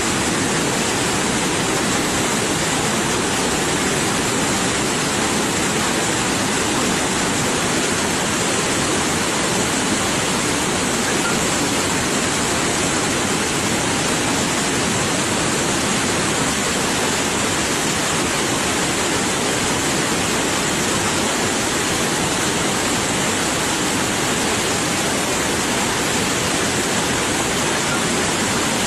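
Waterfall: water falling and splashing in a steady, loud rush with no letup.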